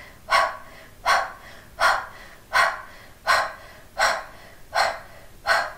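Kapalabhati (breath of fire) breathing: eight short, sharp exhales forced out through the nose, evenly spaced at a slow, controlled pace of about one every 0.7 seconds, each a brief puff of air with a passive inhale between.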